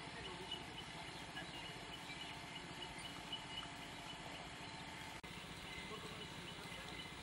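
Steady outdoor background noise: a low rumble with faint, repeated bird chirps.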